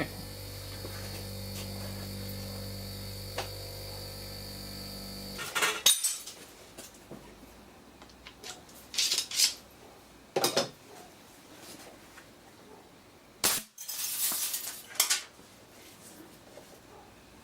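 A steady mechanical hum with several steady tones, cutting off abruptly about five seconds in, followed by scattered metallic and glassy clinks and clatters, a few of them sharp and loud.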